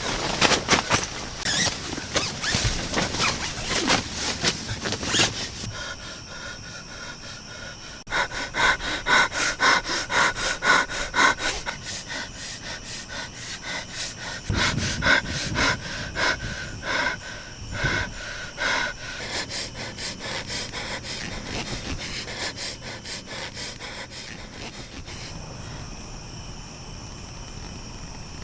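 A person panting rapidly and heavily, with a steady chorus of crickets chirping underneath.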